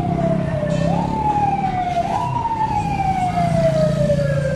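Vehicle siren sounding in repeated sweeps: each one jumps quickly up in pitch and then slides slowly down. It starts a new sweep about a second in and again about two seconds in, and the last sweep falls slowly to the end.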